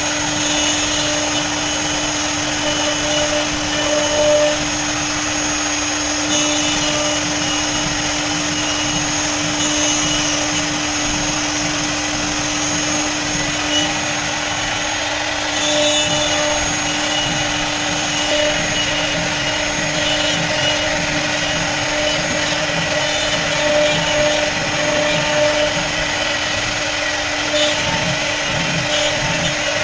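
CNC router's spindle running at a steady whine while its bit cuts a jali lattice pattern into wood, with small swells in level as the cut goes on.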